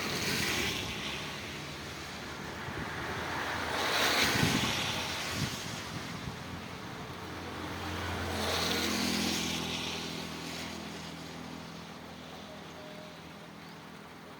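Rain falling steadily, with three louder rushes that swell and fade roughly four seconds apart; the last carries a low hum. The whole sound slowly fades near the end.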